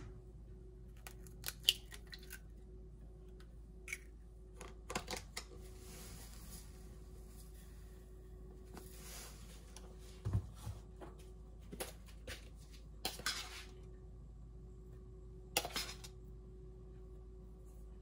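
Kitchen utensils and dishes clinking and knocking now and then, with two stretches of soft hiss, while eggs, powdered milk and sugar are readied for French toast batter. A faint steady hum runs underneath.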